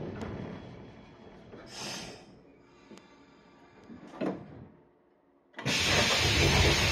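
113 series electric train coming to a stop: the running rumble fades, with a short hiss of air about two seconds in and a sharp knock a little after four seconds. After a moment of dead silence, a loud rush of air with clattering starts about five and a half seconds in, as the pneumatic doors open.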